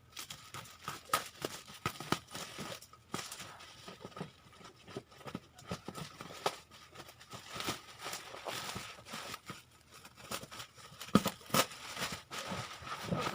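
Bubble wrap being handled and pulled off a packed box, crinkling and tearing with irregular crackles and snaps; the sharpest snap comes about eleven seconds in.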